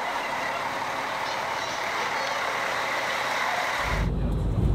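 Steady hiss and hum of a touring coach at a bus bay. About four seconds in it changes abruptly to the deep, muffled rumble of the coach on the road, heard from inside.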